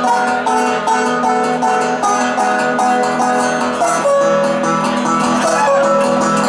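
Solo guitar played live, a steady run of plucked notes over a sustained bass, with one note sliding up in pitch about four seconds in.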